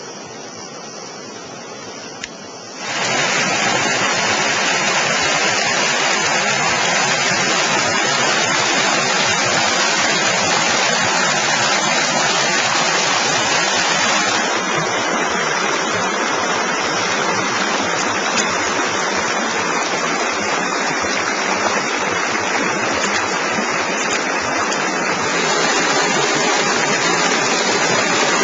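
Steady rushing water, which gets much louder about three seconds in and then stays loud.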